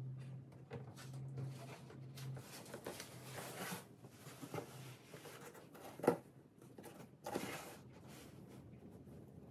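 A large cardboard box being moved and handled, its sides rubbing and scraping in irregular rustles, with a sharp knock about six seconds in and a louder scrape soon after. A low hum runs under the first half.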